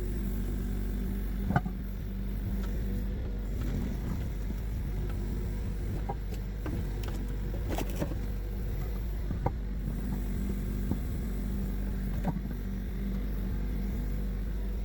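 A motor running steadily with a low hum, with a few sharp knocks scattered through it, the loudest about one and a half seconds in.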